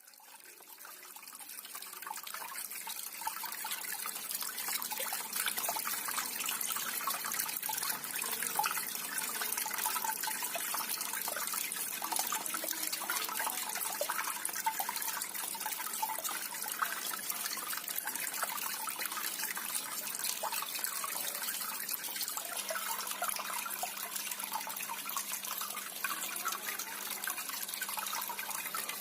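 Small cement fountain running, water trickling and splashing steadily after fading in over the first couple of seconds. A faint low hum joins about three quarters of the way through.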